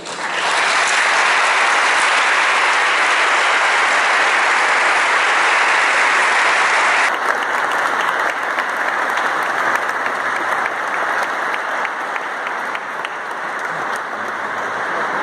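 Congregation applauding, a dense clapping that starts at once, stays loud for about seven seconds, then continues a little softer.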